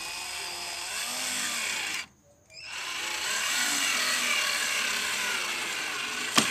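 Cordless drill-driver running in two bursts with a short pause between, driving screws into a car door's speaker panel; its motor pitch wavers as the trigger and the load change. A sharp click near the end.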